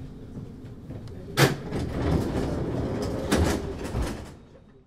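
Wuppertal Schwebebahn MAN GTW 72 suspension railway car: a loud knock about a second and a half in and another about two seconds later, over a rattling rumble, then the sound fades out.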